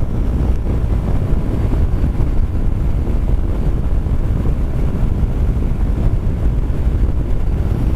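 Steady rush of riding wind on the microphone over the running engine and tyres of a Kymco Xciting 400i maxi-scooter, its single-cylinder engine holding a constant speed.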